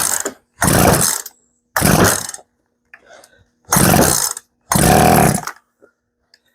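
Poulan P3314 two-stroke chainsaw being pull-started with the chain brake on: five separate pulls on the recoil starter, each a loud burst of the engine cranking, with near silence between pulls.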